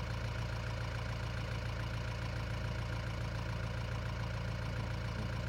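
Safari jeep's engine idling with a steady low hum.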